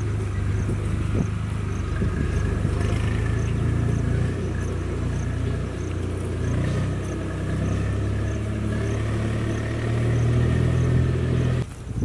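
An engine running steadily, a low even hum that holds through without rising or falling.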